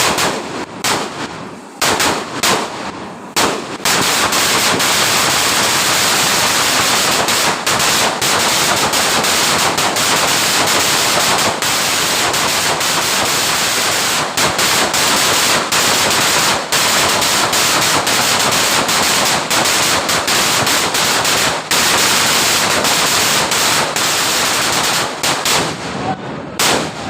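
A string of firecrackers going off: a few separate bangs, then from about four seconds in a dense, rapid run of explosions lasting over twenty seconds, sounding like machine-gun fire, that thins out near the end.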